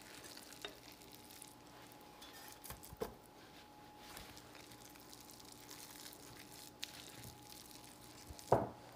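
Faint, soft scrapes and taps of a spatula scooping thick, wet batter out of a glass bowl and dropping it into metal loaf pans, a few separate small knocks over a low steady hum.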